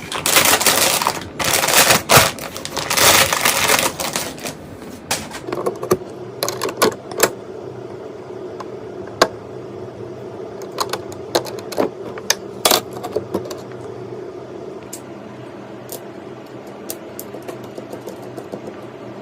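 Computer parts handled and fitted together: loud rustling and scraping for the first few seconds, then scattered sharp clicks and snaps, over a steady low hum.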